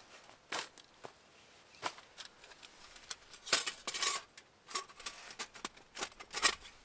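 Thin titanium panels of a Bush Box XL Titanium folding stove clicking and clinking against each other as they are slotted together by hand. A few scattered light clicks come first, then a busier run of metallic clinks in the second half.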